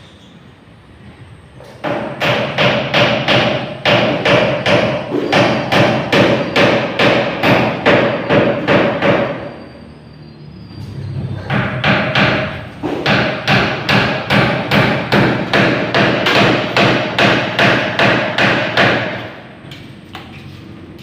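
Hammer blows on a galvanized iron sheet, about three to four a second, each with a short metallic ring. There are two long runs with a pause of about two seconds between them.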